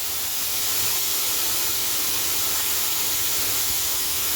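Shelled corn pouring steadily from a grain auger, a continuous hiss over a low machine rumble.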